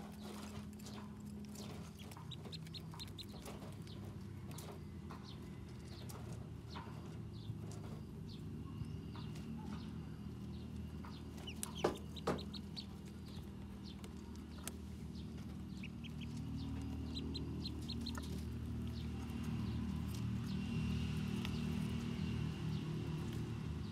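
Domestic ducklings peeping in short runs of quick high notes, with many small clicks from pecking and dabbling, over a low steady hum. A louder double sound comes about halfway through.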